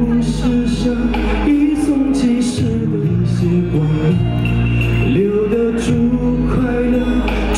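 A man singing into a microphone over a backing track with bass and a steady drum beat.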